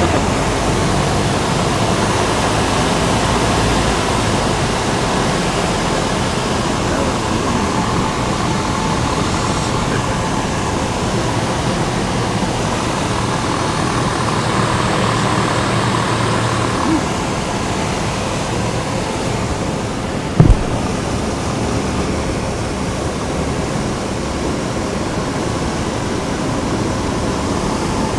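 Steady drone of a light aircraft's engine and propeller heard inside the cabin in cruising flight. A single brief thump about two-thirds of the way through.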